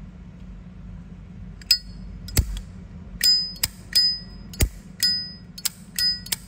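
A Zippo lighter's hinged lid being flicked open and snapped shut again and again, starting after about a second and a half. The clicks ring with a clear bell-like ping, like a temple bell, and two heavier clacks of the lid closing fall in between. The ping is the 'âm chuông' (bell sound) prized in a good Zippo.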